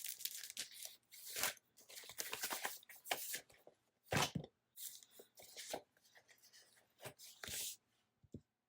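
Paper and sticker sheets being handled: irregular rustling and crinkling with short scrapes, dying away near the end.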